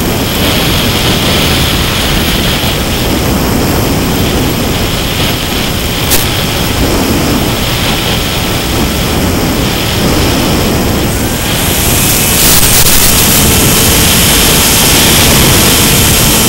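Airflow rushing over the onboard microphone of a Mini Skywalker FPV plane in flight, mixed with the whine of its electric pusher motor and propeller. The noise gets louder about twelve seconds in, where a steady motor tone comes through.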